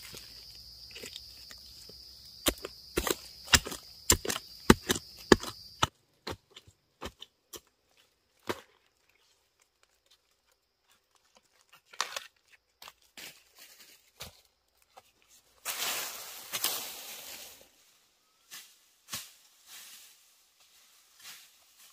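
Irregular sharp knocks and chops, dense and loud for the first six seconds over a steady high-pitched hum, then sparser. A rustling, tearing burst comes about sixteen seconds in.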